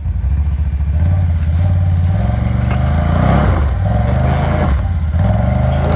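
Can-Am 1000's V-twin engine revving under load as it strains to pull a stuck concrete slab, its pitch climbing and dropping several times from about two seconds in.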